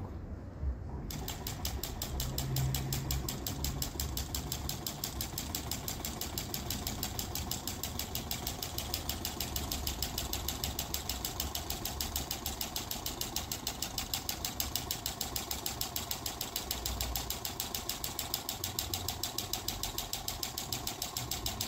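Small homemade soda-can Stirling engine with a CD flywheel, heated by focused sunlight. It starts up about a second in and runs with a fast, even mechanical clatter.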